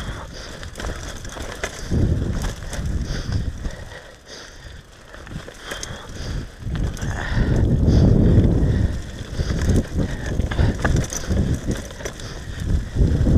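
Downhill mountain bike rolling fast over a dirt trail covered in dead leaves: tyres crunching and rumbling over the ground, with sharp clicks and rattles from the bike. The low rumble swells louder twice, a couple of seconds in and again past the middle, as the ride gets rougher.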